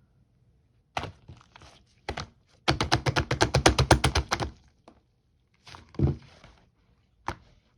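Slime being squeezed and pressed, making sticky clicks and pops: a few single pops, then a quick run of about ten clicks a second for nearly two seconds, then more scattered pops.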